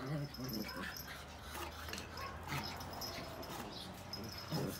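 Dogs in the background making short vocal sounds: a couple at the start and again near the end, over a low steady hum.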